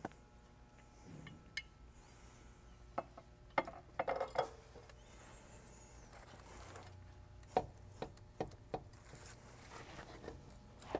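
Scattered light clicks, knocks and rubbing as a 3-inch steel hot side charge tube with a silicone coupler is handled and pushed into place on a 6.7L Powerstroke's turbocharger, its C-clip snapping into the groove. A few sharper clicks stand out among the rubbing.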